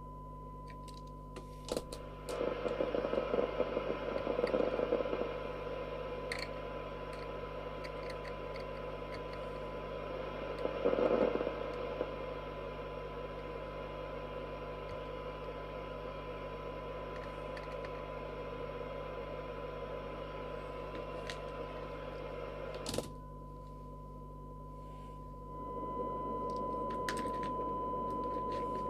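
AKD 4001 4-metre FM receiver's loudspeaker playing a steady 1 kHz test tone from a signal generator, mixed with receiver hiss that comes and goes as the signal level is adjusted, with a few clicks. The receiver is being set up for a 20 dB SINAD reading that it cannot reach, which the owner puts down to possibly noisy transistors.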